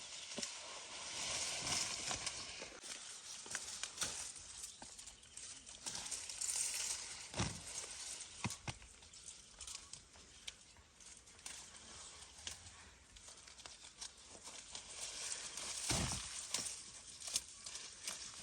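Rustling of leafy fava bean plants with scattered small snaps and crackles as pods are picked by hand, with two soft thumps, one about seven seconds in and one near the end.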